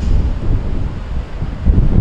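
Wind buffeting the microphone in gusts, over the low rumble of a Cigarette center-console boat's four outboard motors running at low speed.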